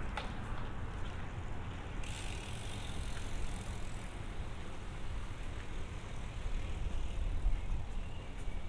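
Street ambience: a steady low rumble of traffic, with a vehicle passing, its hiss rising about two seconds in and fading away over the next few seconds.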